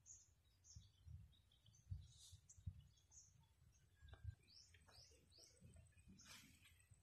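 Near silence with faint bird chirps: short high calls, three in quick succession about five seconds in, over scattered low thumps.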